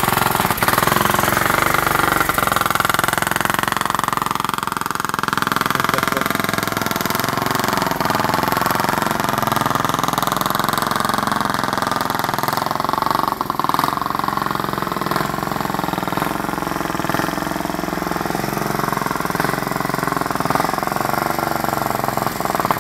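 Ride-on lawn mower engine running throughout, its pitch rising and falling as the mower is driven, with a brief dip in level about halfway through.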